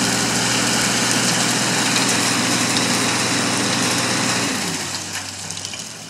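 Mechanical pecan tree shaker running at full speed with its shaker head clamped on the trunk, shaking the tree in a steady, loud mechanical drone. It winds down, falling in pitch, near the end.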